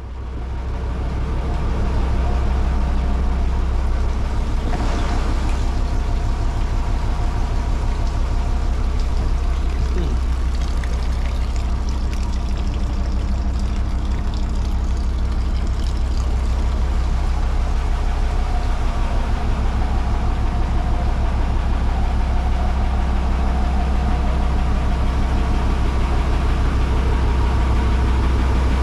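A boat's diesel engine running steadily, a deep low thrum with a fast, even pulse.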